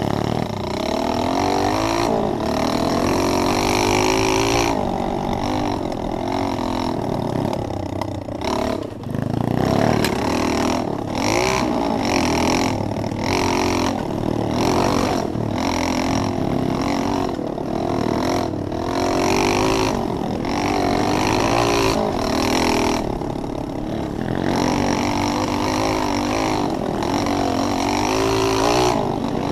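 Pit bike's small single-cylinder engine running on a trail ride, its note rising and falling over and over as the throttle is opened and closed.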